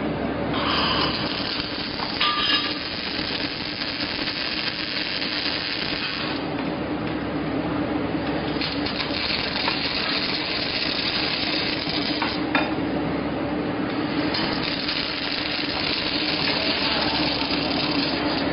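Robotic arc welding: the welding arc crackles and sizzles in three runs with short pauses between them, over a steady machine hum.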